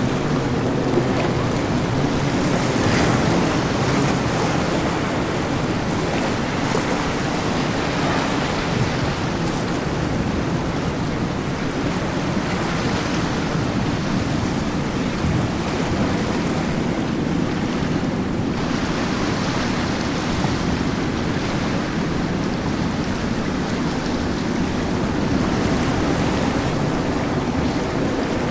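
Steady rush of waves and wash with wind buffeting the microphone, and the low hum of powerboat outboard engines running through the chop.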